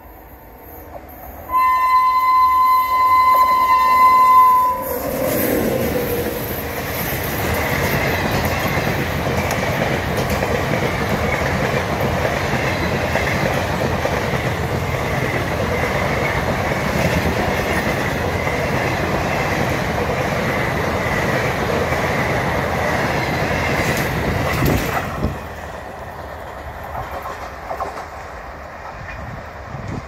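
WAP7 electric locomotive's horn sounding one long blast. Then the locomotive and its passenger coaches pass close by at speed, wheels running loudly on the rails for about twenty seconds. The noise drops off suddenly near the end.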